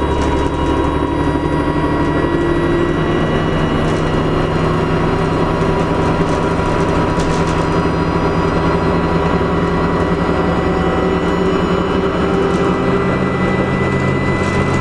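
Dennis Trident double-decker bus engine running with its turbocharger whistling: a steady high whine over the engine's low drone.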